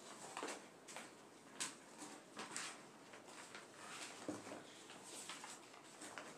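Faint scattered clicks, knocks and rustles of someone moving about and handling things close to the microphone, the clearest knock about a second and a half in.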